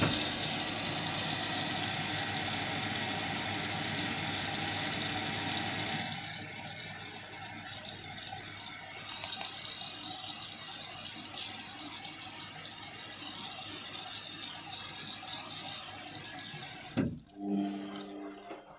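Water rushing into an Indesit washing machine as it fills at the start of a synthetics cycle, a steady gush that starts suddenly, eases a little about six seconds in and cuts off abruptly near the end. A few steady humming tones follow as the water stops.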